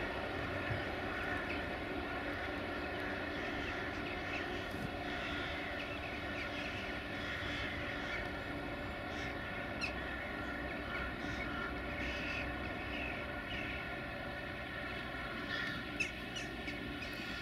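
Railway locomotive running steadily, a constant machine hum with several steady tones, with a couple of sharp clicks around the middle and near the end.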